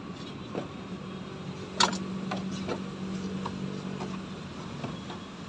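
Handling noises in a small hatchback's trunk: a few light knocks and clicks, with one sharp knock about two seconds in. Under them runs a low steady hum from about two to four seconds in.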